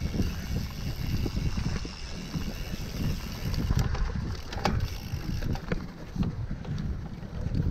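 Cyclocross bike riding over a sandy, rutted dirt trail: wind buffets the microphone, with a low rumble of tyres and scattered clicks and rattles from the bike over the bumps.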